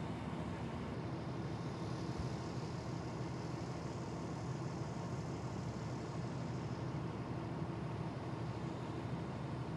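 Fire engine's diesel engine idling: a steady low rumble with a faint hum.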